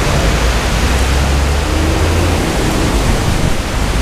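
Steady loud hiss over a fluctuating low rumble.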